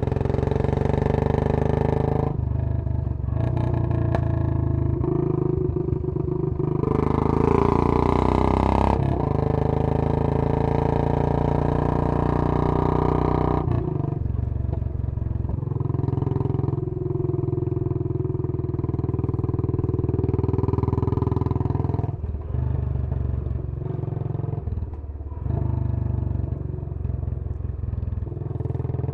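Royal Enfield Bullet 500's single-cylinder engine running through a Punjab long-bottle exhaust while riding, its dug-dug beat rising and falling with the throttle. It pulls loudest and brightest about seven to nine seconds in, and the level dips briefly several times where the throttle is eased or a gear is changed.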